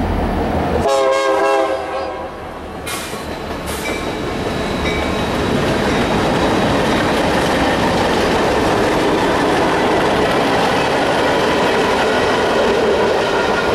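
Union Pacific freight train passing: its horn gives one short chord-like blast about a second in, then the rumble of the locomotives and freight cars rolling over the rails builds up and holds steady, with a clickety-clack of wheels.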